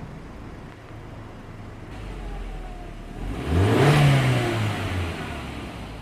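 Car engine idling, then revved once about three seconds in, its pitch rising and falling back over a second or two, with a faint whistle from a fake turbo whistler fitted in the exhaust.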